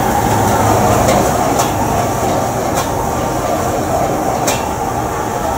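High-flame gas wok burner running with a steady rushing noise while fried rice is stir-fried, with a few sharp clanks of the metal spatula against the wok.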